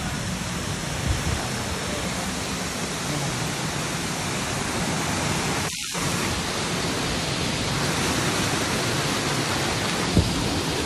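Waterfall: a steady rush of water falling over rocks. The sound cuts out for a split second about six seconds in, and there are a couple of faint knocks.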